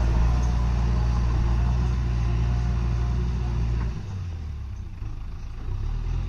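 Diesel engine of a JCB backhoe loader running with a steady low drone; it drops off about four seconds in and picks up again near the end.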